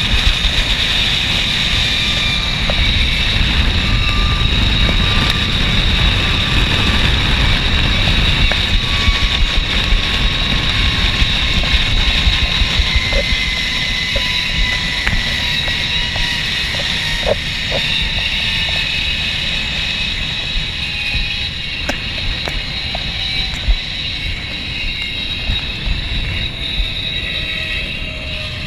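Zipline trolley pulleys rolling fast along the steel cable, a steady whine with one tone slowly falling in pitch, over heavy wind rumble on the microphone. The sound fades gradually toward the end.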